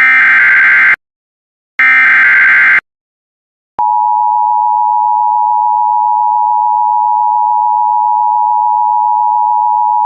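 Emergency Alert System signal: the last two bursts of the digital SAME header, each about a second of buzzing data tone with a short gap between. About four seconds in, the steady two-tone EAS attention signal (853 and 960 Hz) begins and holds.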